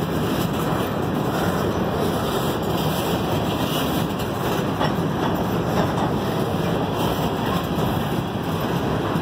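Freight train of covered hopper cars rolling past, a steady rumble of steel wheels on the rails.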